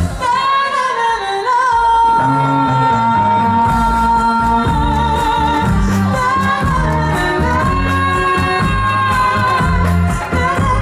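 A live band playing with a singer holding long, wavering notes. The bass drops out for about the first two seconds, then comes back under the voice.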